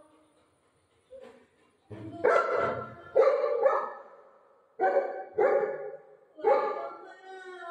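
Golden retriever barking at its owner, who lies motionless on the floor: five sharp barks spaced about a second apart, then a longer, drawn-out call near the end. The dog is trying to rouse her.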